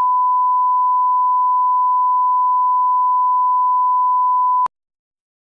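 Steady 1 kHz broadcast line-up reference tone accompanying colour bars, cutting off abruptly with a click near the end.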